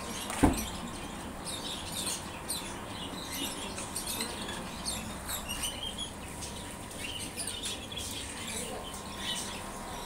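Caged small birds chirping and squeaking: many short, high, scattered calls. A sharp thump sounds about half a second in.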